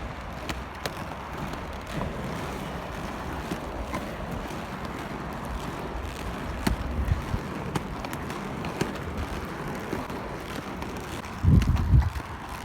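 Roller-skate wheels rolling over pavement: a steady rolling rumble with scattered clicks, with wind noise on the microphone. Near the end, a short, loud low rumble.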